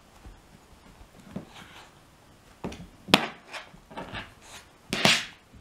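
Shiba Inu sniffing and pawing at a person's closed fists on a box top, picking the hand that hides the treat. From about two and a half seconds in come a run of short snuffles and light paw taps and rubs, then a sharper sniff near the end.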